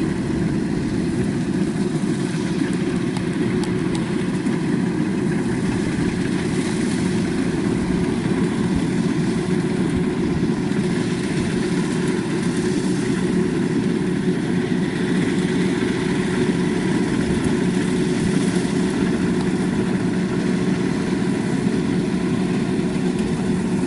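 Kubota DC-93 combine harvester running steadily while harvesting rice, its diesel engine and threshing machinery giving an even, unbroken drone.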